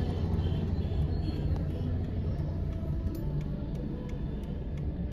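Steady low rumble of a car driving in traffic, engine and road noise heard from inside the cabin.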